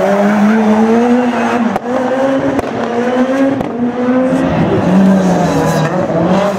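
Rally car engine held at high revs, its pitch wavering up and down with a brief dip about two seconds in, over tyre noise from a car being driven sideways.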